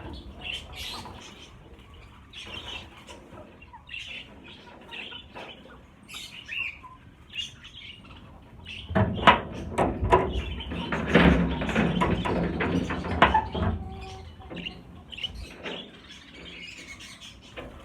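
A flock of budgerigars chirping in short scattered calls. In the middle comes a louder stretch of several seconds of fluttering and knocking, typical of birds flapping and moving about in a wire cage.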